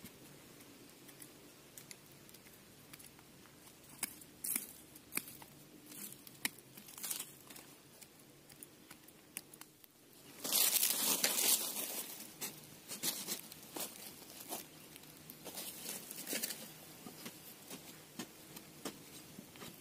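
Hand tools digging into dry, stony soil around a tree stump's roots: scattered scrapes, knocks and crumbling earth, with a louder rustling, tearing stretch about halfway through.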